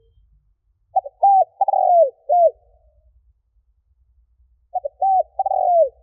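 Spotted dove singing its cooing phrase twice, about four seconds apart. Each phrase is a quick run of short coos, then longer coos that fall in pitch. It is the decoy song bird keepers play to provoke other doves.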